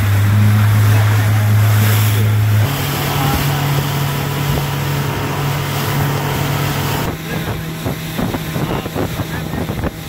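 Small motorboat's engine running steadily under way, with water rushing and splashing along the hull and wind on the microphone. The engine note shifts lower-pitched about a third of the way in.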